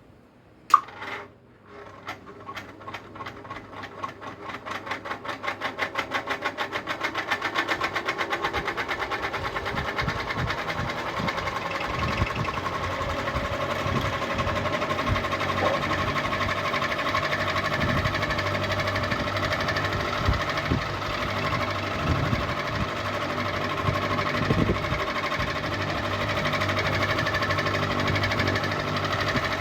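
Ceiling fan switched on with a sharp click, then spinning up: a pulsing beat that quickens over the first several seconds and settles into a steady mechanical hum with a fast rattle.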